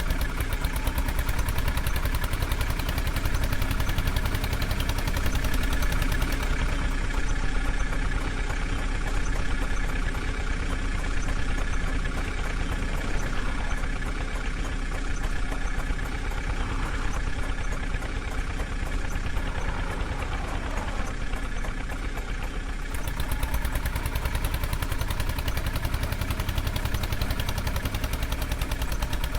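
Diesel engine of a backhoe loader or tractor running steadily with a fast, even clatter.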